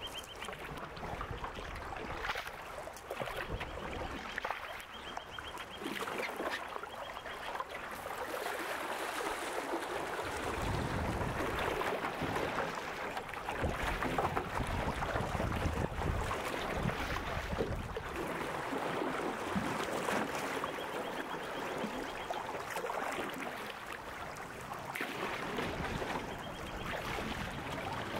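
Rushing river water around a canoe, with a wooden paddle splashing and pulling through the current. The water is louder through the middle stretch.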